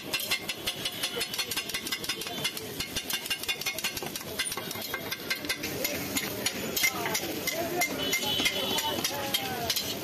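Metal spatula rapidly clacking and scraping against a flat iron griddle as it chops and tosses chicken masala, a fast steady clatter of metal on metal.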